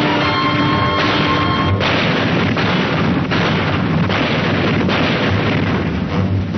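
Battle sound effects: a dense barrage of explosions and artillery fire, with a fresh blast swelling up about every 0.8 seconds. A held musical chord sounds over the first second and a half or so.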